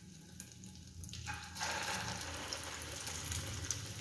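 Egg-coated vegetable cutlets sizzling in shallow oil in a frying pan: the sizzle rises a little over a second in as a cutlet goes into the hot oil, then holds steady.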